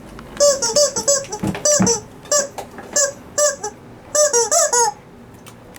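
Rubber chicken squeeze toy squeaked over and over in quick, short squawks, about ten of them, in clusters that stop about five seconds in.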